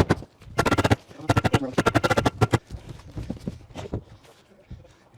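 Power driver fastening screws into metal roofing panels: several short bursts of rapid clicking, one after another, that thin out near the end.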